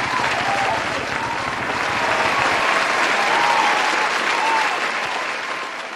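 A crowd applauding with faint cheering, fading out near the end.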